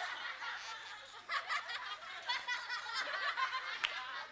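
Studio audience laughing, a game-show laugh-track sound effect, with many voices chuckling and snickering at once.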